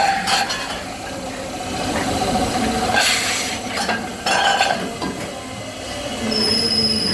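Workshop handwork on metal: scraping and clinking strokes with metal ringing, and a high thin squeal that starts near the end and slowly falls in pitch.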